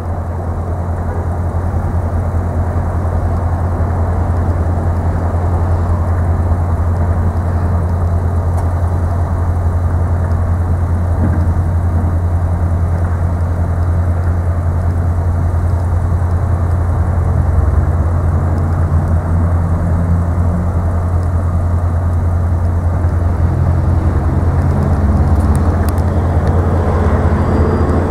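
Motor vehicle engine running steadily close by: a loud, deep, continuous hum. In the last ten seconds or so a second engine note rises and shifts in pitch.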